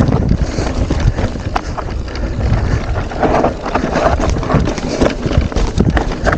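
Mountain bike riding a rough single-track trail: steady tyre rumble with frequent rattling clicks and knocks from the bike, and wind buffeting the microphone.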